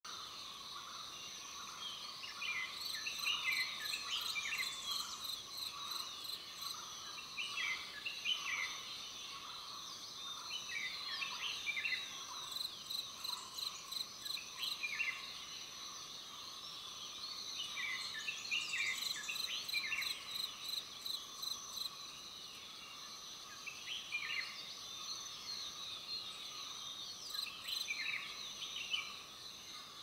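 Steady high insect drone, with a bird singing phrases of short, quickly repeated notes every few seconds over it; some phrases come with a very high, rapid ticking.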